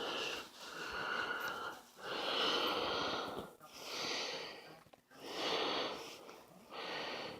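A person breathing audibly through the nose close to the microphone, an even run of breaths in and out about every second and a half.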